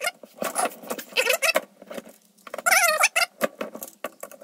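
Plastic clicks and knocks of a vintage Kenner M.A.S.K. Gator toy jeep as its hydroplane section is worked loose and pulled out. A short, loud wavering squeal comes about two-thirds of the way in.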